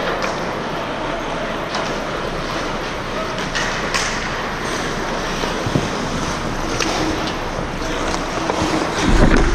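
Hockey game play: a steady scraping rush of skating with scattered sharp stick clacks and puck hits, and a heavy low thump-rumble about nine seconds in.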